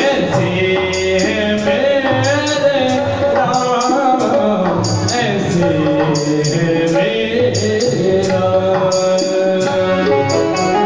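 Male voice singing a Hindi devotional bhajan, with the singer's melody gliding and bending over steady held notes from the accompaniment and a regular beat of short, high percussion strokes.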